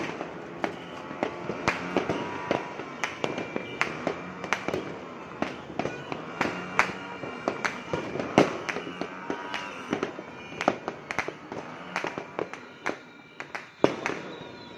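Fireworks going off all around: a steady run of sharp bangs and cracks at irregular intervals, a few each second, with aerial shells bursting overhead. There is a short lull near the end before another loud bang.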